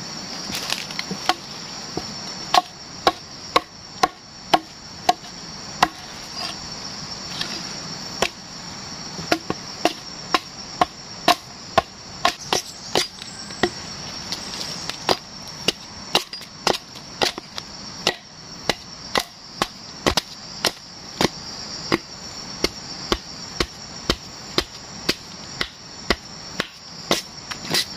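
Hatchet chopping bark off an upright sago log, one sharp chop about every half second. A steady high drone of jungle insects carries on underneath.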